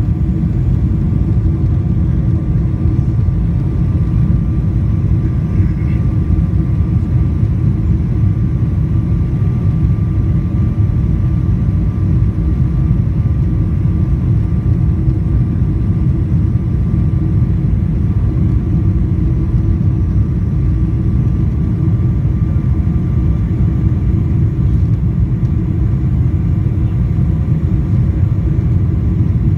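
Steady rumble of jet airliner cabin noise heard from a window seat on the landing approach: engines and rushing air over the lowered flaps, with a few faint steady hum tones above the rumble.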